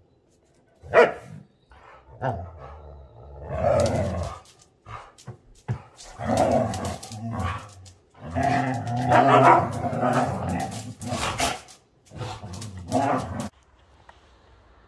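Dogs barking and growling in bouts between two female dogs, one a chocolate Labrador and the other a German shorthaired pointer. It starts with a single sharp bark about a second in, followed by several longer growling, barking stretches that stop abruptly near the end.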